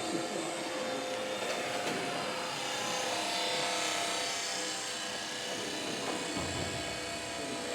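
Electric free-flight model Taylor Cub flying under power: its 7 mm geared motor (5:1 gearbox, run from a supercapacitor) gives a steady whine with a deeper, almost CO2-like tone. The low pitch comes from low RPM, because the motor runs at lower voltage.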